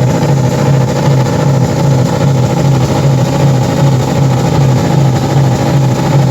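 Car engine held running steadily at a constant high throttle, being run to destruction.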